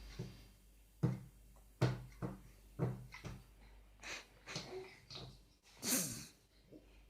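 A small child's hands banging on a table, five or six dull thumps over the first three seconds or so, then whimpering breaths and a short cry about six seconds in.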